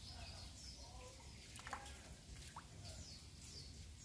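Small birds calling: repeated short, high chirps that each fall quickly in pitch, with a couple of brief sharper notes about halfway through.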